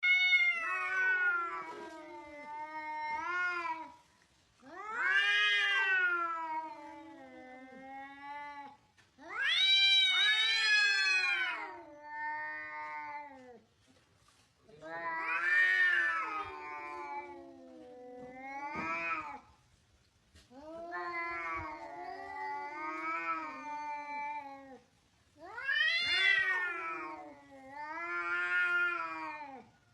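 An angry domestic cat yowling: about six long, drawn-out wavering calls, each a few seconds long, rising then falling in pitch, with short pauses between them.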